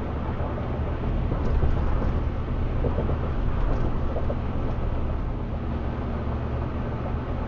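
Steady road and drivetrain noise inside a 2008 Ford F-150's cab cruising at about 60 mph: an even low rumble with a faint steady hum.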